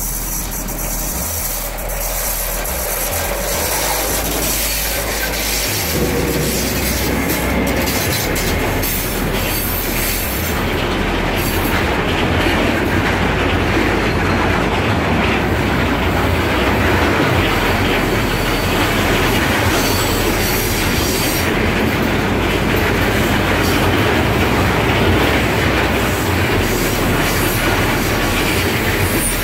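Freight train of ore container wagons hauled by two ÖBB electric locomotives rolling past. It grows louder over the first several seconds as the locomotives come by, then holds as a steady run of wagons.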